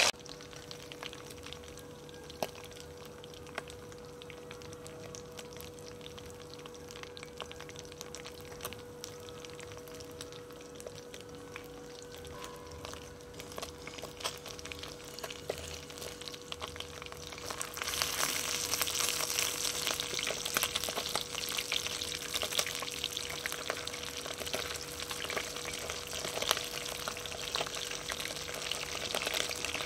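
Small whole sprat fish deep-frying in hot oil in a pot, a steady crackling sizzle. It grows clearly louder and busier about two-thirds of the way through.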